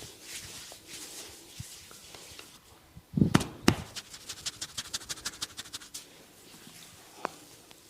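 A barber's hands working on a head during a head massage: a faint scratching rustle in the hair, then two loud sharp hand strikes about three seconds in, followed by a quick run of crisp taps, about eight a second, lasting about two seconds.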